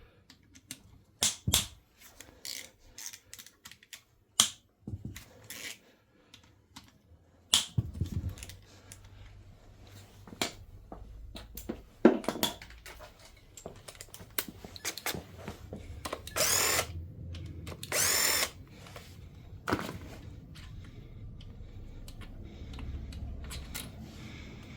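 Two bursts of about a second each from a cordless power tool spinning 11 mm connecting-rod cap bolts out of the engine, the motor pitch sweeping up and down, in the second half. Before them come scattered clicks and clanks of a socket and tools on metal engine parts.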